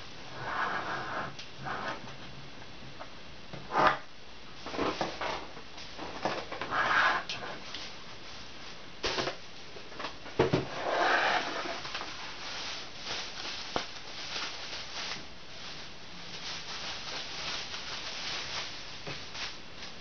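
Irregular handling noises: a stainless-steel electric kettle is picked up and moved on a table, with a couple of sharp knocks, and paper and plastic wrapping rustle.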